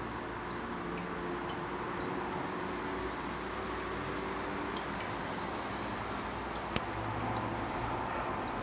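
Cricket chirping in a steady run of short, high chirps over a constant background hiss, with a single sharp click about three-quarters of the way in.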